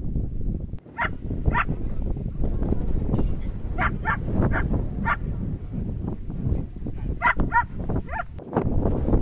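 Strong wind buffeting the microphone, with about nine short, high-pitched animal calls in three groups over it.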